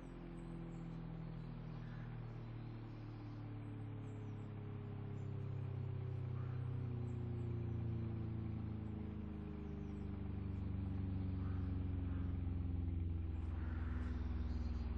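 ACA Allertor 125 electronic outdoor warning sirens sounding the attack signal: a wailing tone here gliding slowly down in pitch. It grows louder about six seconds in and again past ten seconds.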